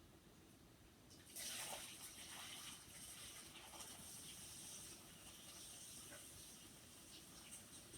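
Near silence: a faint, steady hiss that gets a little louder about a second in.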